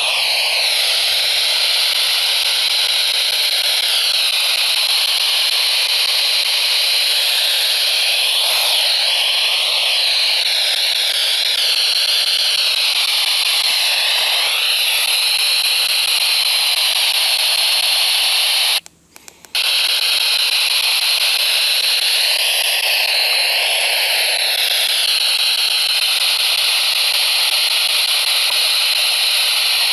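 Radio static: a loud, steady hiss from a receiver on a weak or empty signal, with faint wavering tones under it. It cuts out completely for about half a second roughly two-thirds of the way through.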